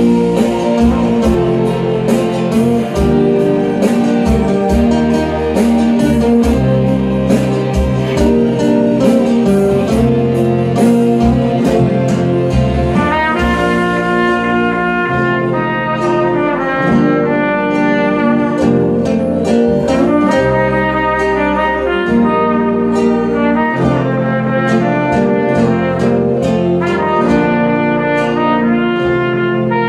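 An instrumental backing track plays sustained chords. About halfway through, a solo trumpet comes in over it, playing a slow melody in phrases.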